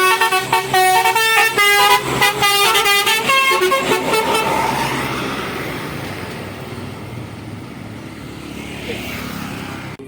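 Tour bus's Basuri 'telolet' multi-tone horn playing a quick tune of short, stepping notes for about four seconds, then a rumble of the bus that fades away.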